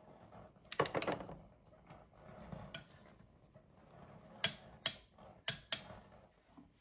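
Torque wrench ratcheting on the cylinder-head nuts of a Yamaha RD250 engine as they are tightened: a quick run of ratchet clicks about a second in, then four sharp single clicks later.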